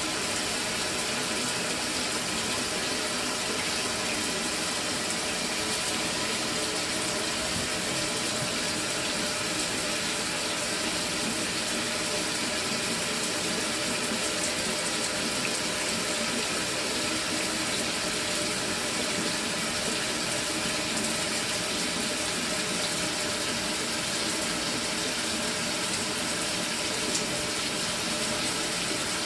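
Water from a Mira electric shower running in a steady, unbroken stream after its solenoid valve has been replaced, with a faint hum beneath it; the flow does not cut out.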